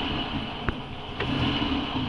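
Vehicle engine running steadily just after starting up, with a single sharp click about a third of the way in.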